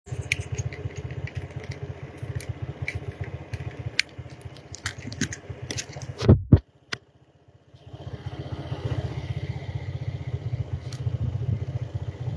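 TVS motorcycle riding along a rough, cracked road: a steady low rumble of engine and wind noise with scattered clicks and rattles. A loud thump comes a little past six seconds, followed by about a second of near silence, then the rumble resumes.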